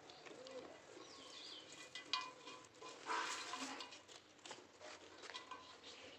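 Faint farmyard ambience: a few bird chirps, a sharp knock about two seconds in, and a short rustling noise a second later.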